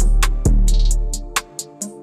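Background music: an electronic beat with a heavy kick drum and deep bass under steady sustained chords, with quick hi-hat ticks on top. The deep bass drops out about one and a half seconds in.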